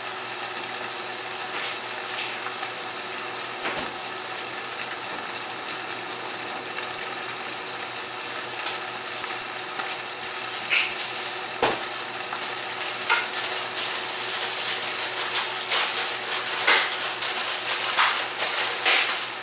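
Beef and broccoli sizzling and steaming in a covered frying pan under a glass lid, steam-cooking in added water. A steady hiss, with crackling and spitting that grows louder from about halfway through, and a couple of soft knocks.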